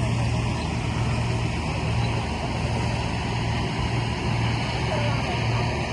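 Combine harvester's diesel engine running steadily under load, a constant low hum under the even clatter and hiss of the working machine.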